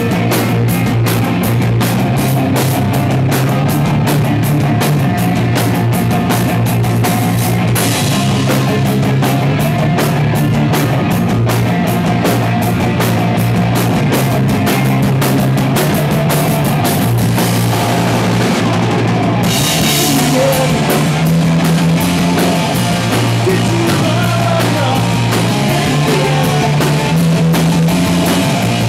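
Live rock band playing an instrumental passage on electric guitars, bass and drum kit, with a fast, steady drum beat. Cymbal washes swell about eight seconds in and again around twenty seconds.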